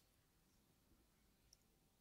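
Near silence: faint room tone, with one small click about one and a half seconds in.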